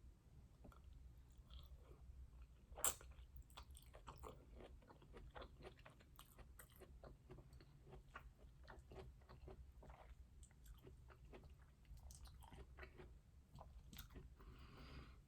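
Faint mouth sounds of a person chewing food close to the microphone: small irregular wet clicks and crackles, with one sharper click about three seconds in.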